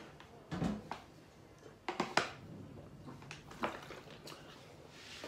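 Water gulped from a thin plastic water bottle, the thin plastic crackling and clicking sharply several times at irregular intervals as it is squeezed and handled.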